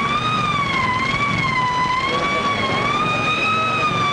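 Siren wailing, its pitch wavering gently up and down about once a second, over a steady low noise.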